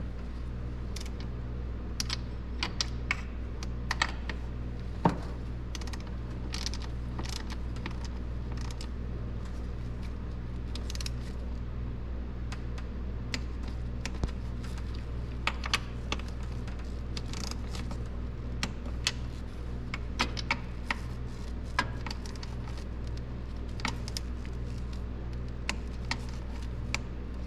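Scattered, irregular small clicks and taps of a hand nut driver working throttle body bolts on a plastic intake manifold, tightened a little at a time by hand, over a steady low hum.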